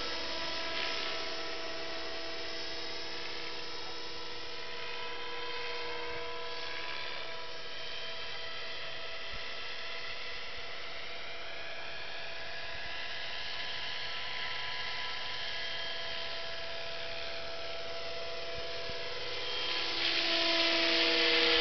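Scale RC helicopter in flight: a steady motor and rotor whine that gets quieter as it moves off and grows louder again near the end as it comes closer.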